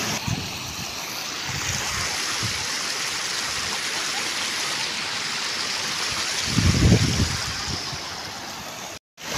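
Muddy floodwater rushing steadily, a continuous rushing noise of a flash flood, with a brief low rumble about seven seconds in.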